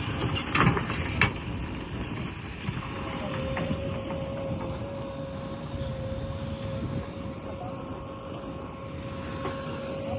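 Diesel engine of a JCB 3DX backhoe loader running, with a steady whine joining in about two to three seconds in and a couple of knocks near the start.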